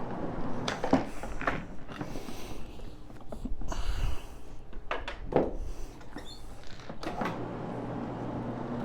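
Rotary carpet-cleaning machine with a cleaning pad running over carpet: several swishing, sliding strokes and knocks, settling into a steady low motor hum near the end.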